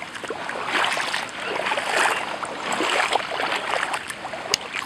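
Footsteps wading through shallow, fast-running floodwater over grass in clog sandals: each step sloshes and splashes, about one a second, over the steady rush of the water. A short sharp click comes near the end.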